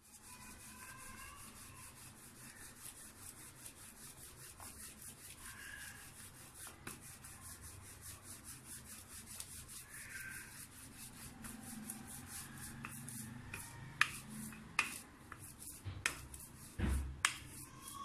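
Wooden rolling pin rolling out paratha dough on a floured counter: a faint, rapid rubbing, stroke after stroke, with a few sharper clacks near the end.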